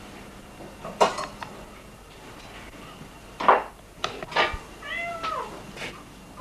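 Steel pots and dishes clink and knock as they are handled on a kitchen rack, with three sharp knocks. About five seconds in, a cat meows once, a short falling call.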